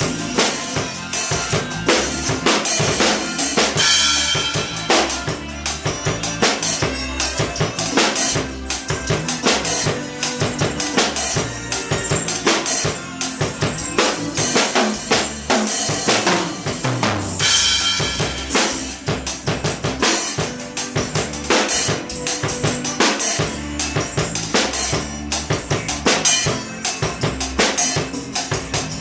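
Pearl drum kit played in a continuous groove, with bass drum, snare and cymbal hits in a fast, steady rhythm.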